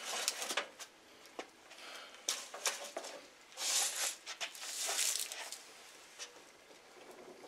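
Handling noises: scattered light clicks and knocks, and rustling, with two longer rustles about three and a half and five seconds in as he bends down under the saw.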